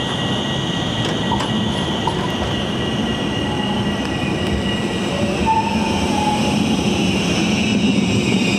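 RET low-floor tram rolling round a curve and passing close, its wheels squealing in steady high tones that slide lower in the second half, over a low running rumble that grows louder as it nears. A couple of light clacks come between one and two seconds in.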